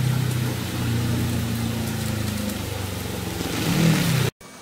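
Rain falling steadily with a hiss, over the low, steady hum of a small truck's engine on the wet street. Near the end the engine note bends and swells briefly, then the sound cuts off suddenly.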